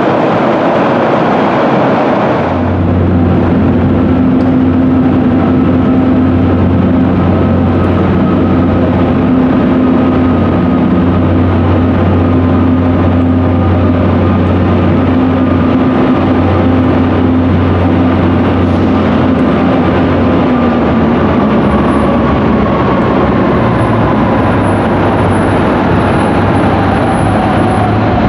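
Broad rumble of a passing train for the first couple of seconds. Then a Montreal Metro diesel work tractor's engine gives a steady low drone from the tunnel as the work train approaches, with a fainter whine that slowly drops in pitch near the end.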